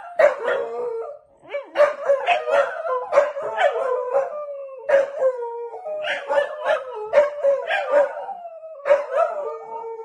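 Two corgis howling together: long wavering howls interrupted by many short, sharp barks and yips, with a brief lull just after the first second.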